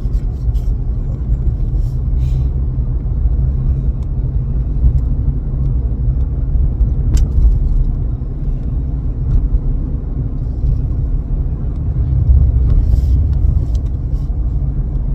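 Steady low rumble of a car being driven, road and engine noise heard from inside the cabin, with a few faint clicks.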